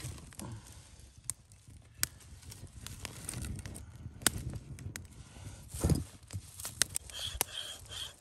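Wood campfire crackling, with frequent sharp pops. Near the end, a knife scrapes on wood in short regular strokes, about three a second, as a notch is carved into a wooden saw frame.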